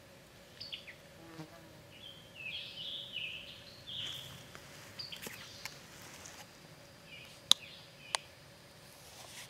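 Faint outdoor ambience of a buzzing flying insect, with short high-pitched calls through the first half. Near the end come two sharp clicks about half a second apart, the loudest sounds.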